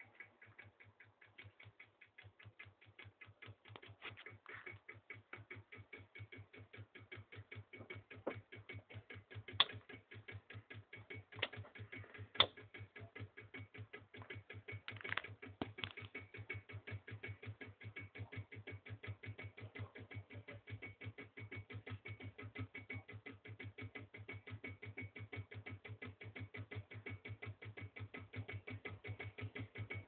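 Reed-switch-pulsed magnet motor running: rapid, even clicking as its coil is pulsed with each turn of the rotor, over a low steady hum. A few louder knocks come around the middle.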